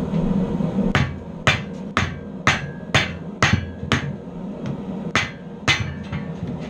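Blacksmith's hand hammer striking red-hot steel clamped in a bench vise, about two blows a second beginning about a second in, each blow a sharp clang with a brief ring.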